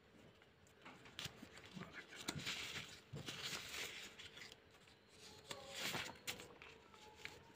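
Faint rustling of paper sheets being handled and shifted, in a few short spells with light clicks and knocks.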